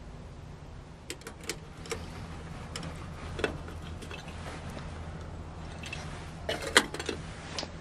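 Steel kettle heating water on a wood-burning stove, with scattered sharp clicks and ticks over a steady low hum, and a louder cluster of clicks near the end.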